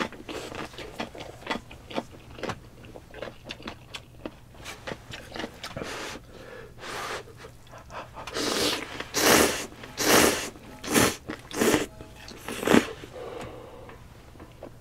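Close-miked eating sounds of spicy instant ramen: small wet chewing and mouth clicks at first, then, past the middle, a run of five or six loud slurps of noodles.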